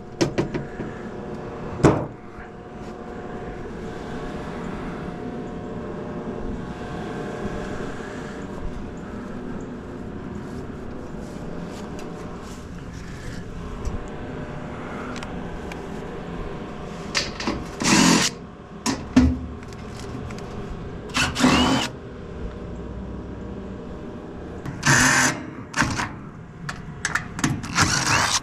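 Cordless drill driving out screws in short bursts with rising whines, amid knocks and clatter of sheet metal as a gas heater is taken apart.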